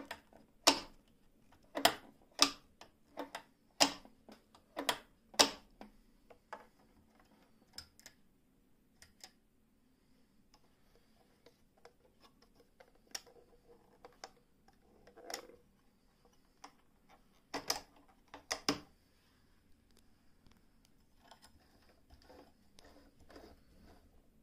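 Sharp, irregular clicks and knocks from the controls of a Frister & Rossmann 202 electric sewing machine being handled and turned. A quick run of loud clicks comes in the first few seconds, then sparser ones with two loud knocks later on.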